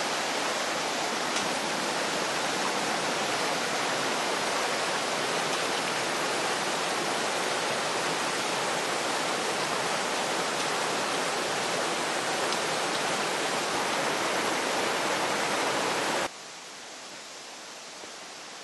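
Rushing water of a mountain river tumbling over boulders, a steady loud wash of noise. It cuts off abruptly about sixteen seconds in, leaving a much quieter steady outdoor hiss.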